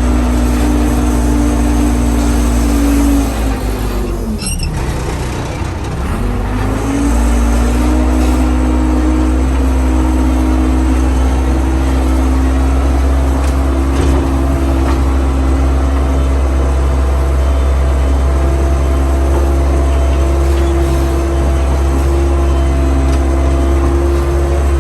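Case 580C backhoe engine running steadily. About three seconds in, its pitch sags and the sound drops, then it climbs back up a few seconds later and holds steady again.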